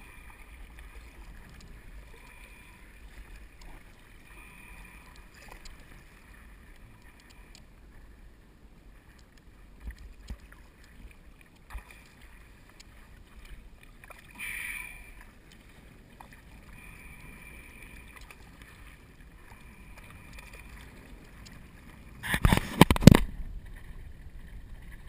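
Paddle strokes of a seated paddler using a SUP paddle as a double-bladed kayak paddle: the blades dip and swish through calm water beside the board in soft, repeating splashes. Near the end comes one short, loud knock and splash close to the microphone.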